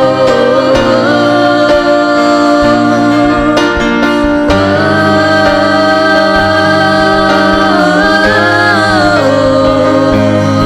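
Slow worship music with long held chords, the chord changing about a second in and again about four and a half seconds in.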